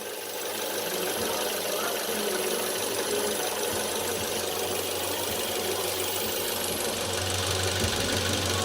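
Car engine idling with a steady whistle from under the hood. The whistle comes from the crankcase oil separator (PCV), whose membrane has burst, and it carries on with the oil dipstick in place.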